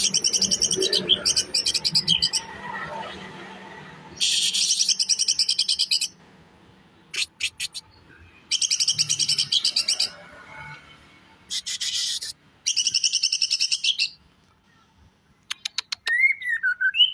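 Cucak ijo (green leafbird) singing in rapid-fire 'tembakan' bursts of harsh, rasping notes, each burst one to two seconds long, about five times with short pauses between. A few sharp clicking notes come between bursts, and a short whistled note rises and falls near the end.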